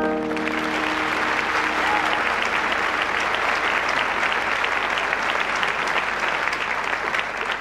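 Audience applauding at the end of a song: steady clapping from a crowd, starting as the final sung note and its accompaniment die away.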